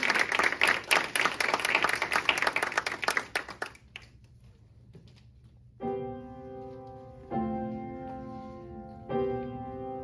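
Audience applause dies away, and after a short pause a grand piano plays sustained chords, struck three times about a second and a half apart, the opening of the next song.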